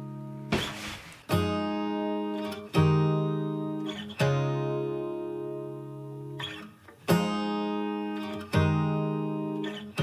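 Outro music: an acoustic guitar strumming chords, each chord struck about every one and a half seconds and left to ring out and fade.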